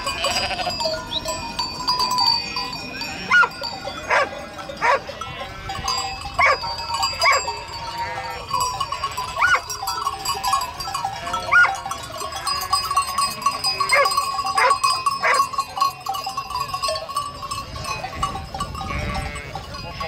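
Large flock of domestic sheep bleating over one another, many short calls overlapping, with bells ringing among them.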